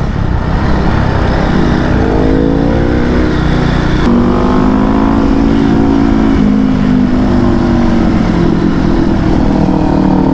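KTM Duke 390's single-cylinder engine under way at speed, its pitch climbing as it accelerates, with a gear change about four seconds in, then holding and slowly dropping as the rider eases off. Wind rushes over the microphone.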